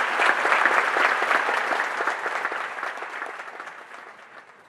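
Large audience applauding, a dense crowd of clapping hands that stays loud for about two seconds and then dies away steadily.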